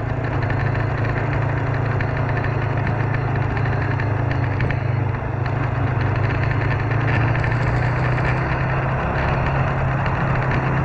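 Motorcycle engine running steadily while riding, its note stepping up slightly at the very start and then holding, with wind noise on the camera microphone.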